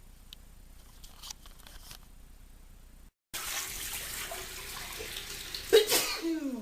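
A man sneezes hard about six seconds in: a sudden loud burst whose voice falls in pitch, brought on by hay fever. Before it, after a brief cut, there is a steady rushing hiss like a running tap.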